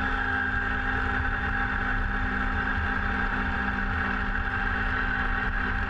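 Kubota BX compact tractor's three-cylinder diesel engine running steadily while driving its rear-mounted snowblower, which is throwing snow.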